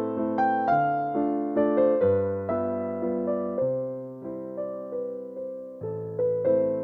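Background music: a piano playing a slow, gentle melody, each note struck and fading.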